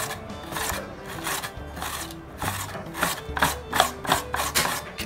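Potato being grated on a flat metal hand grater, in repeated strokes about two a second, with background music underneath.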